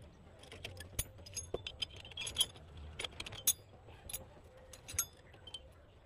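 Irregular light metallic clicks and clinks of a hand tool against rear drum-brake hardware (shoes, springs, wheel cylinder) as the brake assembly is taken apart by hand.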